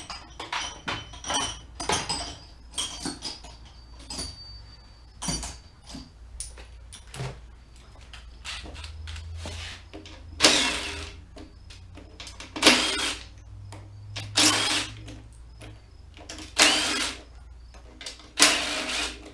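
Cordless drill-driver running in five short bursts, about two seconds apart, in the second half, backing fasteners out of a battery pack. Before that, a run of small metallic clicks and clinks as parts and tools are handled.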